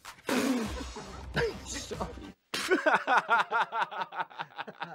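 A man laughing hard: a fast run of 'ha's that starts about halfway through and trails off, after a short murmur in the first half.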